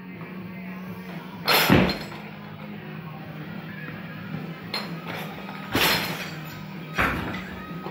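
Barbell loaded with rubber bumper plates clanking during a snatch: a loud clank and thud about a second and a half in as the bar is pulled and caught, then a smaller clank and two more clanks later as the bar comes back down to the platform.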